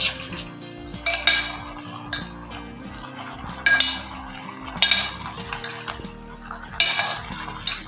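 Steel ladle stirring thick cooked rice and dal in a metal pot, scraping and clinking against the pot's sides and rim about six or seven times at uneven intervals.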